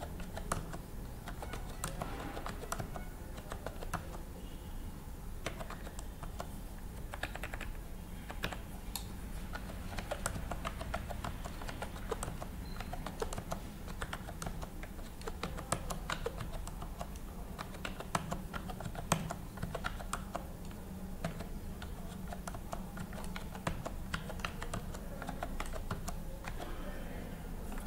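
Computer keyboard keys clicking in quick, irregular runs as numbers are typed into a spreadsheet, over a steady low hum.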